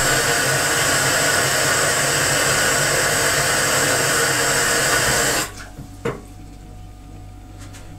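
Kitchen tap running into a plastic measuring jug: a steady rush of water that stops about five and a half seconds in, once the jug is filled. A short knock follows soon after.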